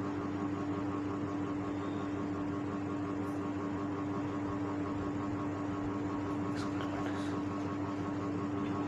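Steady background hum and hiss with one constant tone, with a few faint ticks about two-thirds of the way through.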